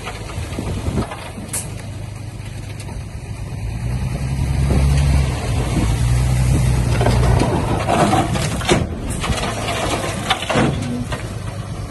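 Diesel engine of heavy earthmoving machinery running, getting louder about four seconds in, with scattered knocks and scrapes over the engine.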